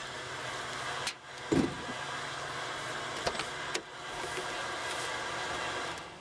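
Steady electric hum of the wood gasifier's blowers, dipping briefly twice. A heavy thump about a second and a half in, and a couple of sharp clicks a couple of seconds later, come from hardware being handled.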